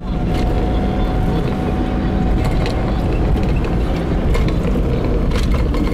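Steady low rumble of a car's engine and tyres on the road, heard from inside the cabin while driving, with a faint thin whine over it for the first three seconds or so and a few light clicks.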